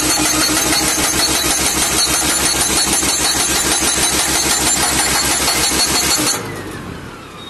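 Hydraulic hammer of a crash barrier post-driving machine pounding a steel post into hard soil, a rapid, steady hammering that stops suddenly about six seconds in, leaving the machine's engine running more quietly.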